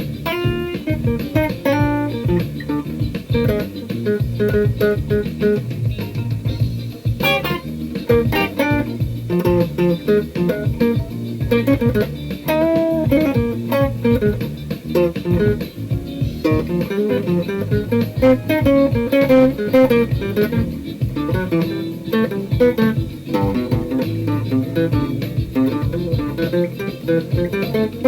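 Instrumental music: a plucked guitar playing melodic lines over a steady low groove.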